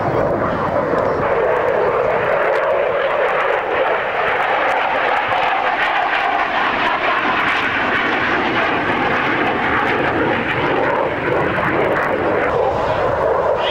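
F-16 fighter jet flying a display, its single jet engine making loud, steady jet noise.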